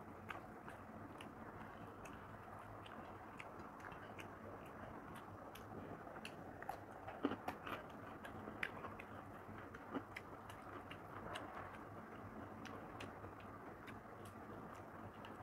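Faint close-up eating sounds: chewing with small wet mouth clicks, and fingers mixing rice and mutton curry on a plate. The clicks come irregularly, with a few louder ones around the middle.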